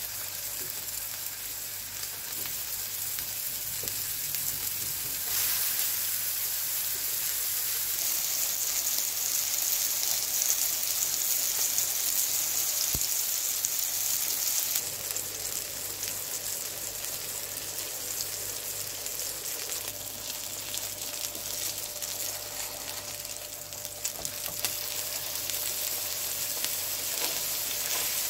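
Minced-lamb burger patties sizzling in oil on a flat nonstick griddle pan: a steady frying hiss, somewhat louder through the middle stretch.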